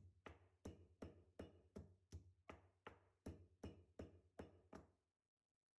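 Stone pestle pounding green chillies, cumin and curry leaves in a stone mortar: faint, even thuds about three a second, stopping near the end.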